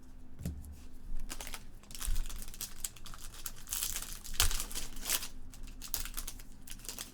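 Plastic packaging crinkling and rustling in irregular bursts as trading cards are handled and unwrapped, loudest about two seconds in and again past the middle.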